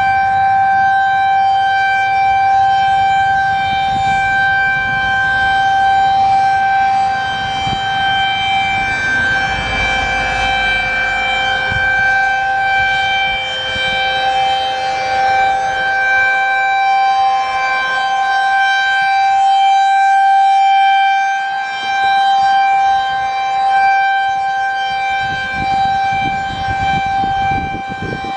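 Federal Signal 2001-SRN electronic warning siren sounding its alert signal: one steady, loud tone with overtones. It swells and fades as the rotating horn sweeps toward and away.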